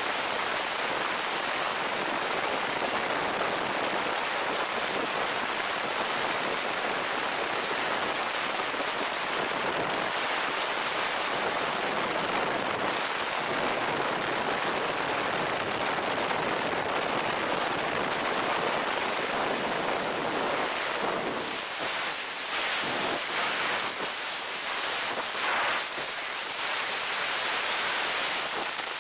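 Freefall wind rushing over the skydiver's helmet-mounted camera as a steady roar of air noise. It wavers and dips unevenly in the last several seconds.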